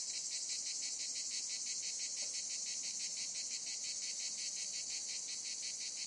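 Cicada calling: a steady, high buzz with a fast, even pulsing of several pulses a second, the male's mating call.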